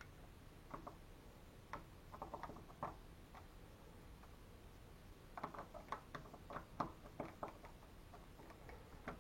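Faint, irregular small clicks and ticks from door lock hardware being worked by hand, in two short flurries a few seconds apart.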